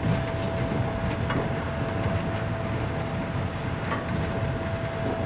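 Diesel railbus of the 'Ferkeltaxe' type running along a branch line, heard from the cab: a steady engine and running noise with a thin steady tone above it and a few faint clicks.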